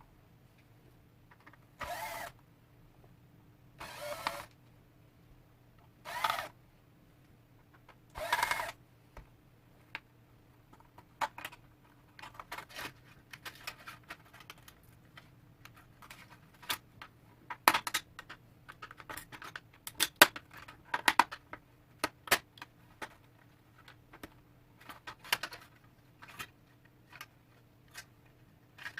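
A small power drill-driver runs in five short bursts about two seconds apart, then a long run of irregular clicks, snaps and knocks follows as the LED lamp's parts are worked apart by hand, over a faint steady hum.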